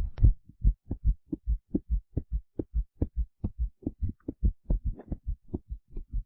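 Heartbeat sound effect: a fast, even run of low thumps, about four or five a second, starting right at the opening.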